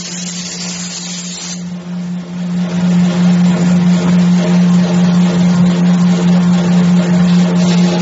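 Wood door lock drilling and slotting machine running, its spindle motor giving a steady hum. A hissing noise over the hum grows louder about two and a half seconds in.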